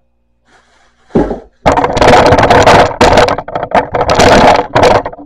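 Loud rubbing, scraping and knocking right at the camera's microphone as the camera is handled and moved, starting about a second in and lasting about three seconds.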